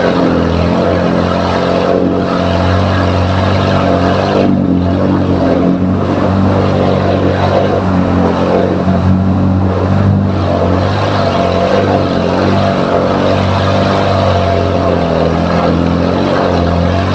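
Engine of an off-road 4x4 running loud and steady, its pitch shifting a little as the throttle changes.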